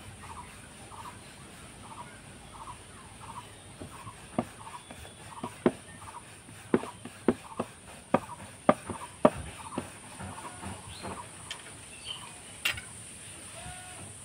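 Wooden rolling pin rolling dough out thin on a round wooden board: a soft repeating rolling rhythm, then a string of sharp wooden clacks in the middle as the pin and board knock together, with one sharper click near the end.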